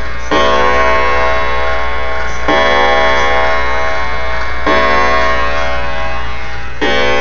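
E. Ingraham antique kitchen clock striking on its coiled wire gong: four hammer blows about two seconds apart, each ringing on and fading slowly until the next.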